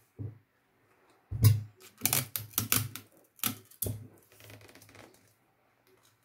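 Handling sounds on a tabletop as a heavy desk tape dispenser is set down and used: a knock about a second and a half in, then a quick run of clicks and taps over the next two seconds, and a faint rustle after.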